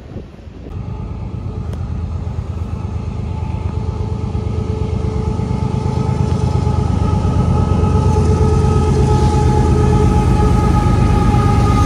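Diesel-electric freight locomotive approaching, its engine running with a low rumble that grows steadily louder, and a steady whine rising in level over it.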